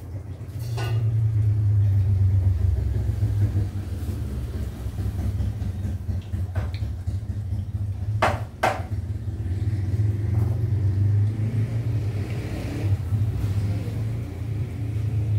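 Steady low rumble from the stove under a lidded wok of tom kha gai heating toward the boil. Two sharp clicks come close together about eight seconds in.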